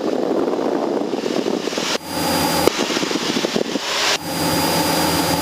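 Cessna 172SP's four-cylinder Lycoming engine and propeller droning steadily in cruise, heard from the cockpit. The sound changes character twice, about two seconds in and again after four seconds, with a faint thin high whine in those stretches, like an intercom or radio channel opening.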